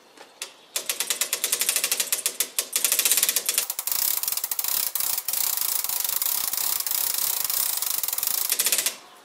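Manual chain hoist being hauled up, its chain and ratchet clicking rapidly. The clicks start about a second in, run together into a continuous rattle partway through, and stop suddenly near the end.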